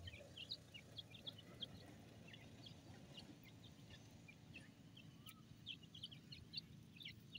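Francolin chicks giving faint, short high peeps, scattered irregularly over a quiet background hiss.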